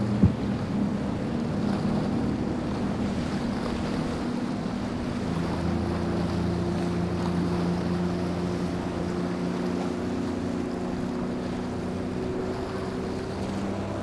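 A center-console boat's single outboard motor running at speed as it passes, with a steady engine drone that grows clearer about five seconds in over the rush of its wake and wind on the microphone. A brief sharp knock comes right at the start.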